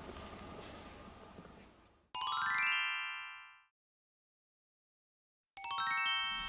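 Chime sound effect for a title card: a quick run of bell-like notes falling in pitch, ringing out for about a second and a half. After a silence, a second, faster falling run comes near the end. Before the first chime, faint room sound fades out.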